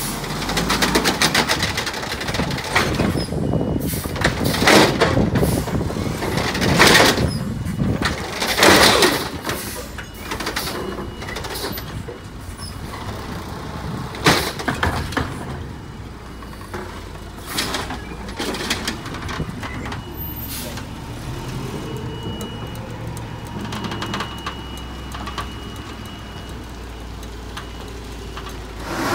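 Amrep automated side-loader arm on a 2001 Mack LE garbage truck picking up and dumping recycling carts: repeated clanks and bangs of the carts and arm over the truck's running diesel engine, which revs up near the end.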